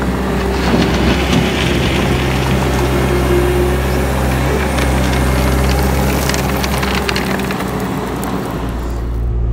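Diesel engine of a Bobcat T650 compact track loader running steadily under load while its bucket digs into a pile of crushed-stone gravel, the stones crunching and rattling, along with the steel-embedded rubber tracks grinding over the gravel.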